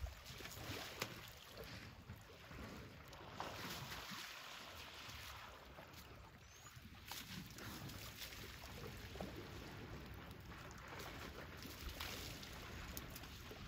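Faint wind buffeting the microphone, with soft water sloshing and splashing from elephants wading in the muddy shallows.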